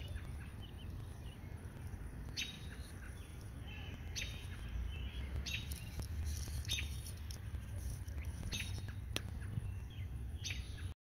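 Small birds chirping, short high calls scattered through, over a low steady rumble; the sound cuts off abruptly near the end.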